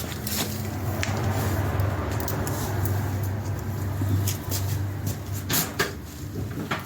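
A low, steady mechanical hum that fades about five seconds in, with a few sharp clicks and knocks over it, the loudest near the end.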